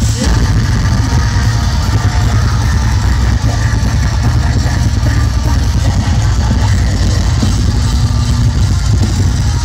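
Live deathcore band playing loud and heavy: distorted down-tuned guitars, bass and drums, with a dense low end. The full band comes in suddenly right at the start.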